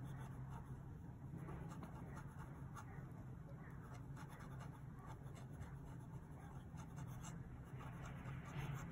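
Faint scratching of a Platinum 3776 fountain pen's 14-karat gold music nib writing on paper, stroke after stroke as letters are formed.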